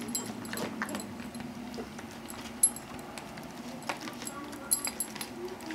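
Puppy eating wet canned food mixed with kibble from a bowl: irregular wet mouthing and sharp clicks and clinks against the bowl, one louder clink about two and a half seconds in.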